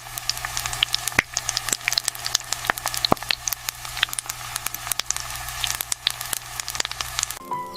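Potato-coated corn dogs deep-frying in hot oil: a dense sizzle with frequent sharp pops and crackles, over a steady low hum.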